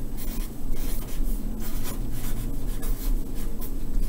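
Felt-tip marker writing on chart paper: a quick run of short rubbing strokes, several a second.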